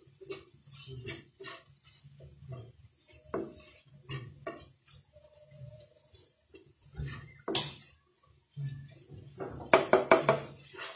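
Slotted spatula scraping and knocking against a nonstick frying pan as a thick dried-fish and tomato mash is stirred, in irregular strokes, with one sharper knock past the middle and a busier clatter near the end.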